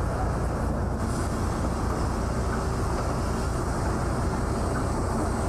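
Steady low rumble of a ship's deck machinery, with a faint constant hum running through it.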